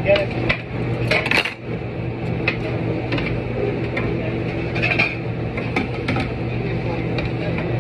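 Scattered clinks and knocks of kitchenware being handled, over a steady low machine hum.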